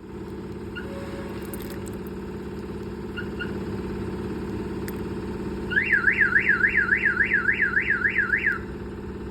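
Viper aftermarket car alarm siren sounding a fast rising-and-falling warble, about three sweeps a second, for about three seconds starting a little past halfway. Short beeps come before it, one about a second in and two quick ones near three seconds, over an engine idling steadily underneath.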